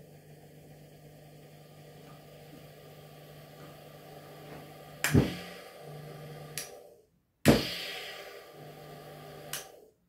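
Brushed washing machine motor running on a TDA1085C speed controller board, a steady hum that grows louder over the first five seconds as it speeds up. Then a sharp click and abrupt stops and restarts as the reverse switch is flipped to change the direction of rotation, each restart loud at first and fading.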